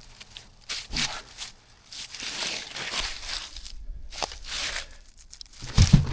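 An axe chopping into a fallen tree: a few separate knocks, the loudest near the end, with the crackle and rustle of dead branches and brush in between.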